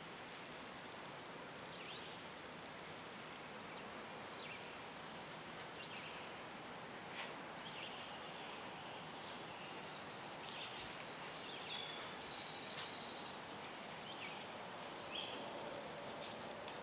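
Outdoor background ambience: a steady hiss with scattered short, high chirps, and a thin high whistle about twelve seconds in.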